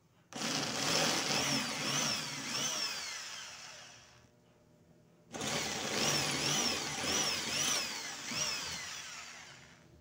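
Corded electric drill running a 5 mm bit through the metal end bracket of a fan motor housing, enlarging two pilot holes. There are two runs of about four seconds each: each starts abruptly and fades as the drill slows, with repeated high chirps as the bit cuts the metal.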